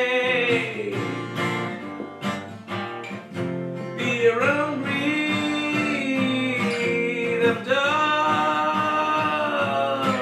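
Acoustic guitar strummed while a man sings long held notes over it.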